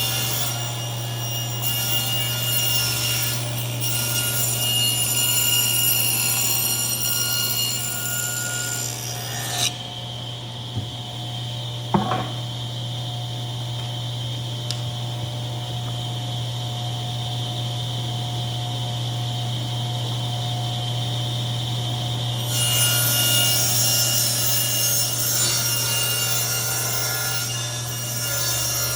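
Power saw ripping wooden boards lengthwise, over a steady motor hum. The cutting noise drops away for about thirteen seconds in the middle while the saw keeps running, then starts again near the end.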